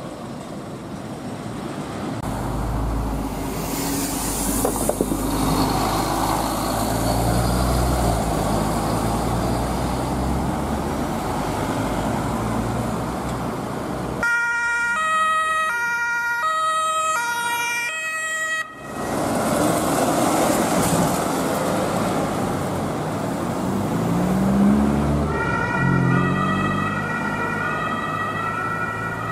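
Ambulance two-tone siren (German Martinshorn) alternating between a high and a low note, heard clearly about halfway through and again near the end. Between the siren passages there is engine and tyre noise from the Mercedes-Benz Sprinter ambulance and the traffic around it.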